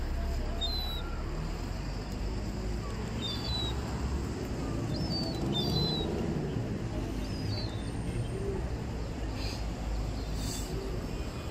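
Street ambience: a steady low rumble of the city, with a small bird chirping in short, quick calls about five times in the first seven or so seconds.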